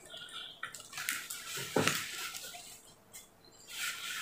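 Cardboard box being handled and turned on a leather sofa: scraping and rustling, with a sharp knock a little under two seconds in.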